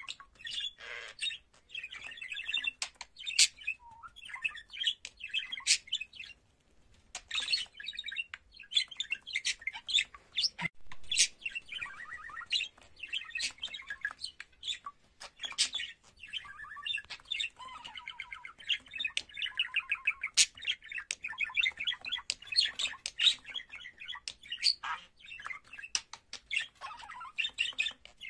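Budgerigar warbling: a long, rambling run of quick chirps, chattering notes and sharp clicks, with a brief pause about six seconds in.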